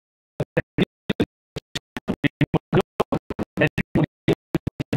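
Marker pen squeaking and scratching on a writing board in many quick, short strokes as a word is written, with gaps of silence between strokes.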